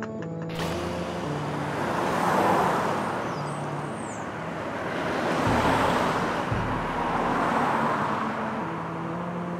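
Street traffic noise with vehicles passing, swelling about two seconds in and again around six seconds.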